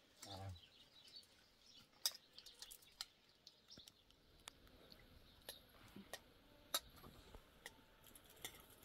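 Faint sounds of people eating: spoons lightly clicking and scraping on plates in scattered single ticks, over a near-silent background.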